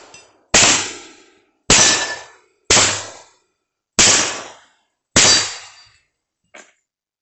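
Taurus 83 .38 Special revolver fired five times in a steady string about a second apart, each shot trailing off in a short ring. A faint click follows a little over a second after the last shot.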